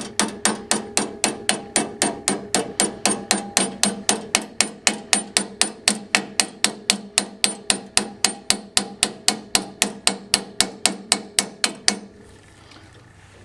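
Hammer gently tapping a pin through the knob and inner latch of a wood stove loading door, a steady run of about four light ringing taps a second that stops near the end.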